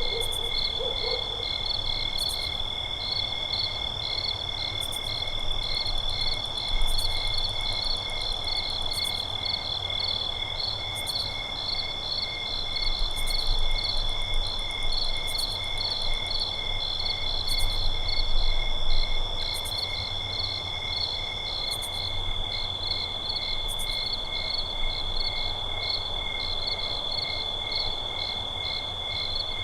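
Night forest ambience: crickets and other insects chirping and trilling in several overlapping steady rhythms, one high continuous trill and a few evenly pulsed chirps, over a faint low rumble. An owl's hoot trails off in the first second.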